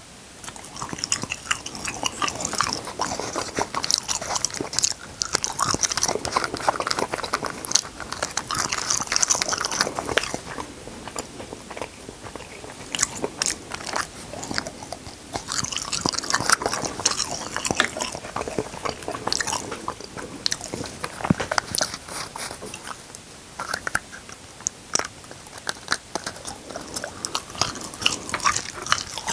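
A person biting and chewing food close to the microphone: crisp crunching bites and wet chewing, many sharp clicks coming in bouts with brief lulls.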